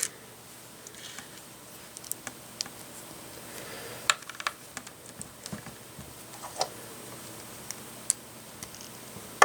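Small plastic LEGO pieces clicking and tapping as they are handled and pressed into place, a scattered series of light clicks at an uneven pace.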